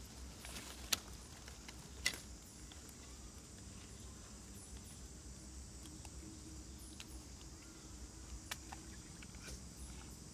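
Light clicks and ticks of sticks, cord and dry leaves being handled while a snare trap is set, with two sharp clicks about a second apart near the start, over faint steady forest ambience.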